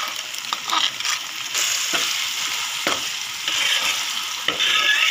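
Rice ada frying in ghee in a metal uruli, sizzling steadily, while a spoon scrapes and clinks against the pan, stirring in cooked sago. The ada has just begun to roast.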